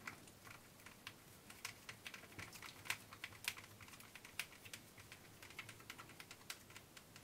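Faint, irregular small clicks and ticks of a precision screwdriver turning a tiny screw out of a 1:18 RC buggy's front hub carrier, with plastic and metal parts being handled.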